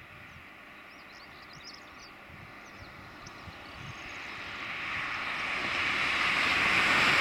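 Airbus A320-232's IAE V2500 turbofan engines at takeoff thrust during the takeoff roll: a distant jet noise that grows steadily louder from about halfway through as the aircraft comes nearer. A few faint bird chirps are heard early on.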